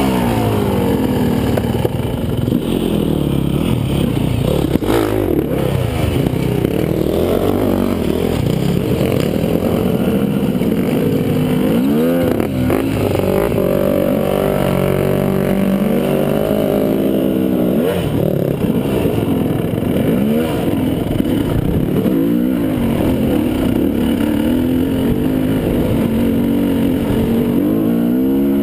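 Dirt bike engine running under load, its pitch rising and falling with the throttle and gear changes. A couple of sharp knocks come in about five seconds in and again near the middle.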